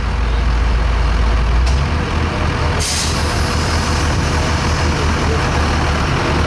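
Truck engine idling with a deep, pulsing rumble that shifts in note about two seconds in, and a short sharp hiss of released air about three seconds in.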